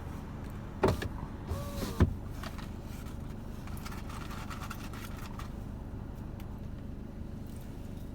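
Low steady rumble inside a car, with a couple of sharp knocks and a short squeak in the first two seconds and a faint thin whine a few seconds in.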